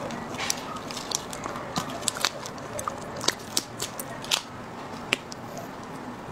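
Shell of a large marinated raw crustacean cracking and snapping as it is pulled apart by hand, in a dozen or so sharp, irregular clicks, the loudest a little past the middle.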